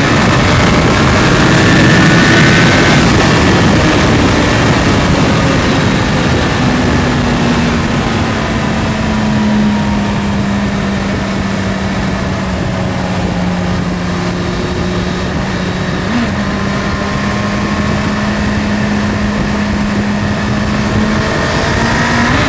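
Sport motorcycle's inline-four engine running at a steady high-speed cruise around 6,000 rpm, heard from the rider's seat under heavy wind rush. The engine note holds one nearly steady pitch for most of the stretch.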